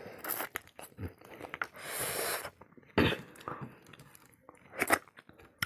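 Close-up mouth sounds of a person eating meat off the bone by hand: wet chewing and smacking in quick irregular clicks, with sharper, louder strokes about three and five seconds in.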